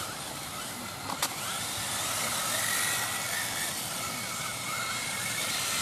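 Electric 1/10 on-road RC touring cars (Kyosho Fazer Mk2) racing past, their motors whining and rising and falling in pitch as they speed up and slow down through the corners. There is one sharp knock a little over a second in.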